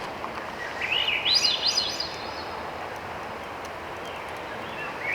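A songbird sings a phrase of quick, rising warbled notes about a second in, and starts another phrase near the end. Under it runs a steady rushing background noise.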